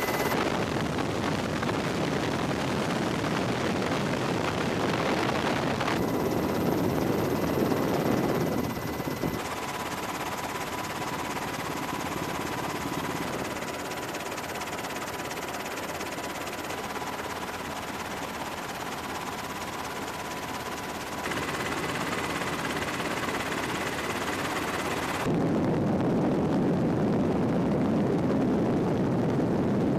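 Steady rushing helicopter engine and rotor noise, its tone and level changing abruptly several times: about 6, 9, 21 and 25 seconds in.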